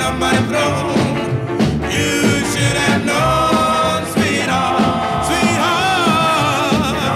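Rock-and-roll song: a singing voice over a full band with a steady beat, the voice holding a long wavering note in the second half.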